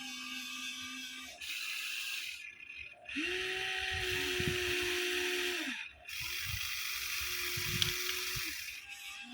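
Huina 1593 remote-control excavator's electric gear motors whirring in short runs that start and stop as the boom and arm move: a brief one about a second and a half in, then two longer runs of about two and a half seconds each.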